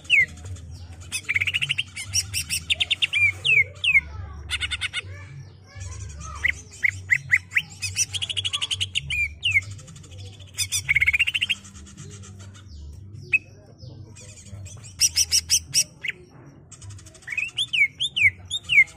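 Male green leafbird (cucak ijo) singing a long rolling song: bursts of rapid chattering trills alternating with quick up-and-down whistled notes, in phrases separated by short pauses.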